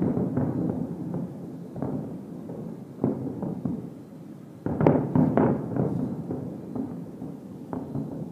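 Aerial firework shells bursting in a series of booms, each trailing off in a long echo; the loudest cluster of bursts comes a little past the middle.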